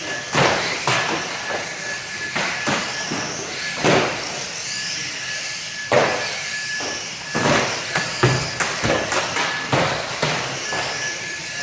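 Radio-controlled saloon cars racing on a carpet track, their motors whining high and rising and falling in pitch. Frequent sharp knocks come from cars hitting each other and the track barriers, with a cluster of them near the end.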